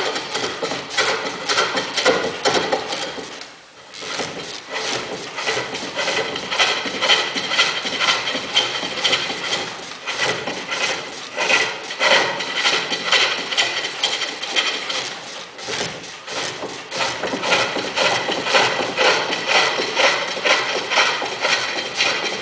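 Wood being turned on a lathe: a tool cutting the spinning workpiece with a loud, dense, rapidly repeating scraping. It eases off briefly about four seconds in, then carries on.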